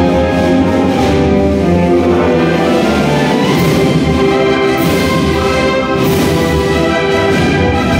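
Spanish processional wind band (clarinets, saxophones, trumpets and tubas) playing a marcha procesional: loud, sustained full-band chords, with a few accented strokes in the second half.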